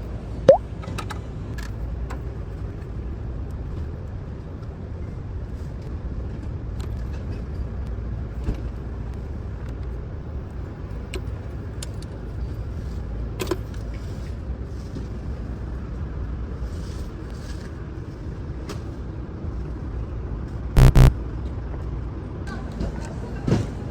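Car engine running steadily, with scattered clicks. A sharp click comes about half a second in, and a short, loud pitched double tone sounds near the end.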